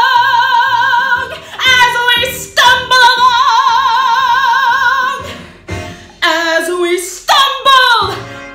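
A woman singing in a belted musical-theatre style: two long held notes with a wide vibrato, then shorter sliding phrases near the end.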